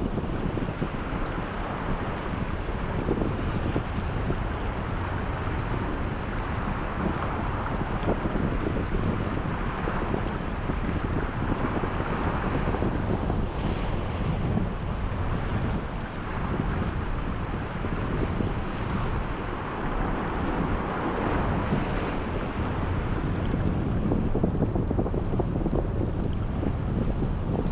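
Strong wind buffeting the microphone over the steady wash of surf.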